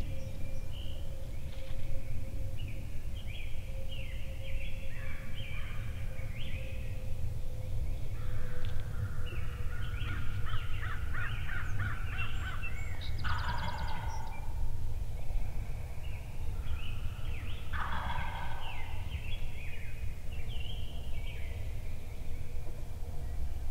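A wild turkey gobbler gobbling twice, one rattling call about 13 seconds in and another about 18 seconds in, over songbirds singing throughout.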